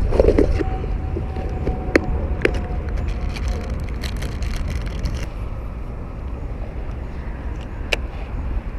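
Steady low rumble of wind on the microphone, with a few sharp clicks and a thin steady whine through the first few seconds.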